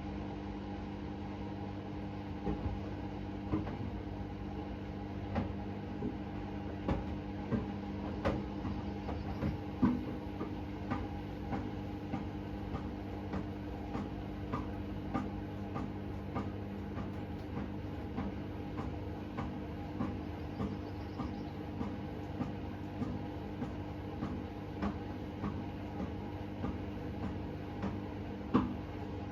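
Hoover H-Wash 600 washing machine running mid-cycle: a steady motor hum as the drum turns, with irregular clicks and knocks about once a second.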